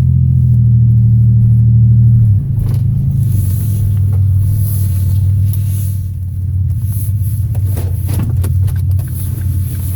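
Vehicle engine running, a loud low drone whose pitch steps down about two and a half seconds in, as when easing off or changing gear.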